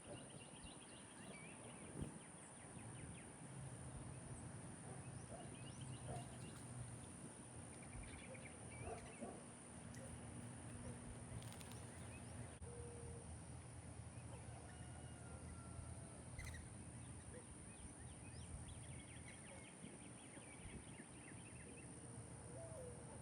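Faint outdoor ambience with small birds chirping and trilling now and then. A low steady hum runs through much of the middle and stops about two-thirds of the way in.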